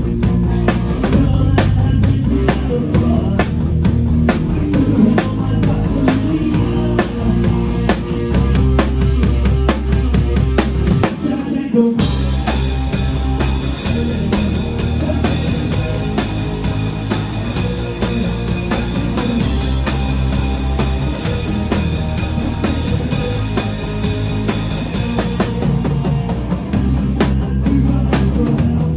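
Rock band playing live, driven by a drum kit with bass drum and snare. About twelve seconds in, the music suddenly turns brighter and fuller, and it drops back near the end.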